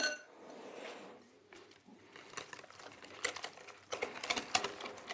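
A metal utensil strikes a glass mixing bowl once with a short ring, then stirs thick yeast pancake batter with quick, irregular clicks and scrapes against the bowl. The clicking gets busier in the second half.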